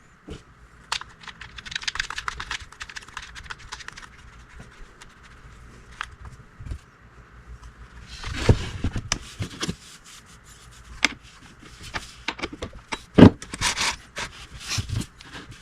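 Parts of an Echo CS271T chainsaw being fitted together by hand: the chain, guide bar and side cover scraping, rattling and clicking as they are seated on the bar studs. There is a louder scrape about halfway, and several sharp clicks near the end.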